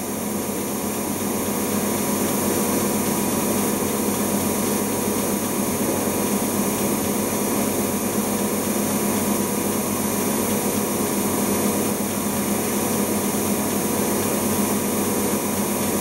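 Siemens iQ WIQ1430 front-loading washing machine in its cotton final spin, the drum and motor running at a steady speed with an even hum that holds one pitch throughout.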